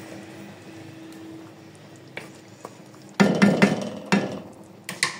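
Cooking utensils knocking and clattering against a cooking pan: a quick run of sharp knocks about three seconds in, then a couple of lighter clicks near the end.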